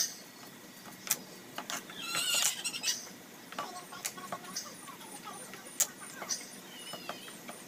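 Kitchen knife knocking and pressing on a wooden cutting board in scattered strokes as garlic cloves are crushed and chopped. Chickens cluck in the background, loudest about two to three seconds in.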